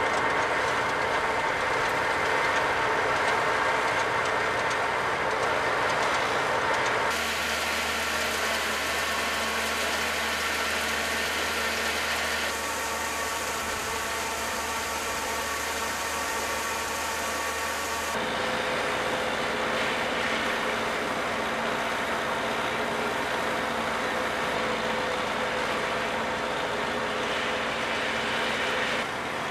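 A tractor-powered grain threshing machine running steadily while threshing grain into sacks, the tractor engine and the thresher's machinery making one continuous mechanical noise. Its tone shifts abruptly a few times.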